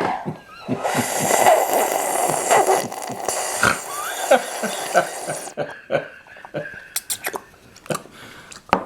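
Loud slurping of chicken noodle soup, a long noisy suck lasting several seconds, followed by a few short sharp clicks.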